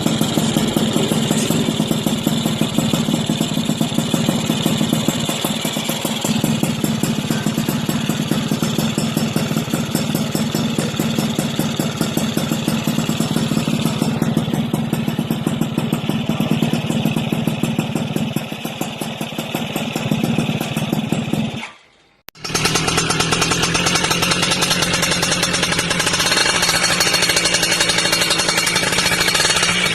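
Yamaha F1ZR two-stroke motorcycle engine running through its exhaust, a steady, fast pulsing beat. About 22 seconds in it cuts off for a moment, and another F1ZR exhaust takes over with a brighter, rattling tone.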